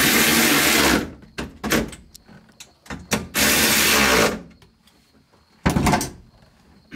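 Hands working on wiring behind a car's dashboard: two loud, noisy rasps about a second each, a few seconds apart, with scattered clicks and knocks between them.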